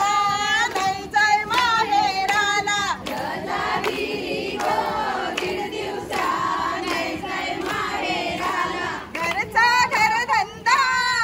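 A group of women singing a song together in unison, in short repeated phrases. The singing is clear and close at the start, blurs into a mass of voices for several seconds in the middle, and comes through clearly again near the end.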